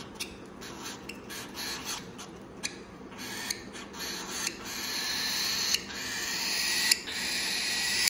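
Grey cockatiel chick's raspy begging squeaks during spoon-feeding: short, separate squeaks at first, then running together into a near-continuous call that grows steadily louder toward the end.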